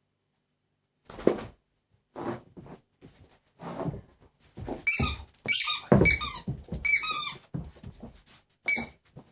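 Squeaky dog toy squeezed in a young Doberman's jaws while he chews it, its squeaker squealing in quick irregular bursts, thickest about five to seven seconds in, with one last squeak near the end. Softer chewing and knocking noises come between the squeaks.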